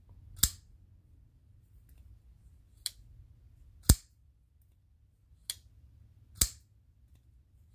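Folding pocketknife with a micarta handle flicked open and folded shut by hand. Three loud, sharp snaps, about three seconds apart, come as the blade swings open and locks; two softer clicks fall between them as it is closed.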